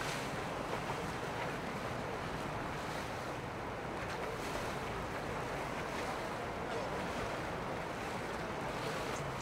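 Steady rush of churning water and boat wake, with wind noise on the microphone.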